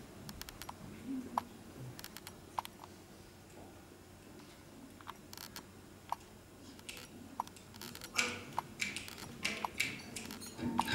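Quiet room tone with scattered light clicks and short ringing clinks, growing into a denser run of clicks and taps over the last three seconds.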